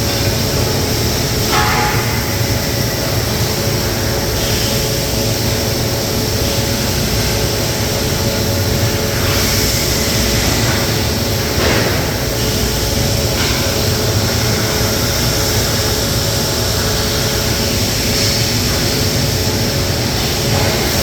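Steady machinery hum and hiss from an automated welding line, with a few faint brief clicks.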